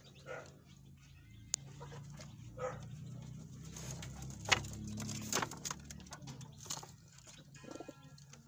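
Animal sounds: a short call near the start and another about two and a half seconds in, over a low steady hum. A few sharp clicks come in the middle, the first the loudest.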